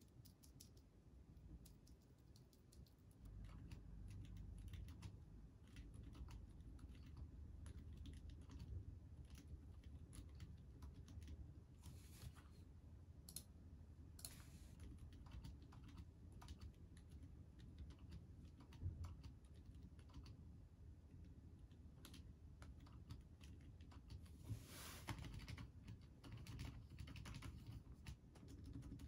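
Continuous typing on a GMK67 mechanical keyboard fitted with O-rings under its double-shot ABS keycaps, built to be extremely silent: a faint, uneven stream of muted key presses.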